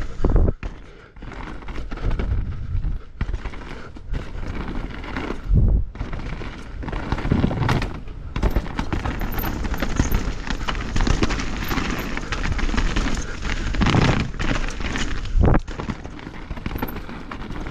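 A 2023 Norco Fluid full-suspension mountain bike on 29-inch Maxxis Assegai tyres riding fast down rough dirt singletrack. Tyre and trail noise rushes throughout, with a constant rattle of sharp knocks as the bike hits roots and rocks and several harder thuds along the way.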